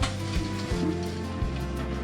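Background music with a steady bass beat, with a sharp click right at the start.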